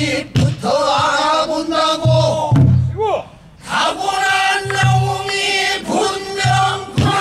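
Male voice singing pansori, a danga in long bending held notes that break off and resume. Short low drum thumps mark the beat every second or two.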